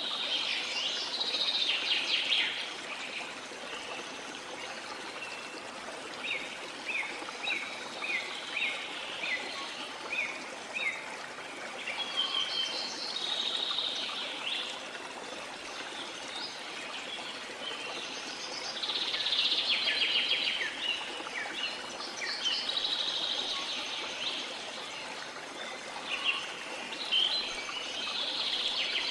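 Birds singing and chirping over a steady trickle of running water. A run of short, falling chirps comes about two a second for several seconds in the first half, and fuller bursts of song follow.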